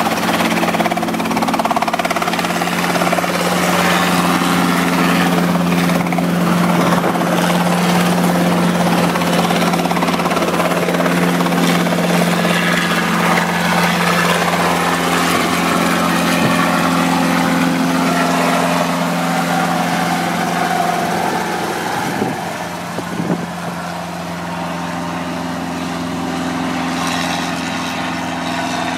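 Robinson R22 helicopter lifting off and climbing away: a steady engine and rotor drone with a strong low hum. It grows slightly fainter after about twenty seconds as the helicopter gains height.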